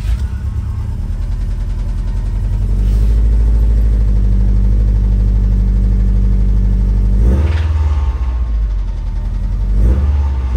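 Subaru STI's turbocharged flat-four engine running with a knock that the mechanic takes for rod knock; teardown traces it to a spun number four rod bearing.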